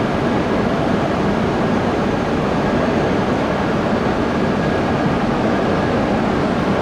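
E6-series Komachi Shinkansen train running in along the platform, its wheels and motors making a steady, even running noise.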